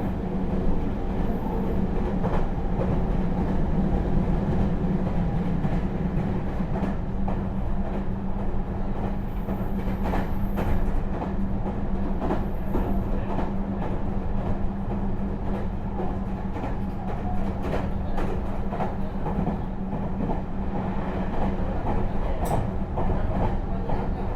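Inside a Meitetsu 3700 series electric train car running between stations: steady wheel-and-rail running noise with a constant low hum and a few scattered rail-joint knocks.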